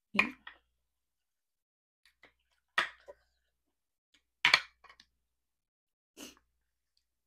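Close-miked eating sounds: four short, wet mouth sounds a second or two apart as a braised beef rib is bitten and chewed, the third the loudest.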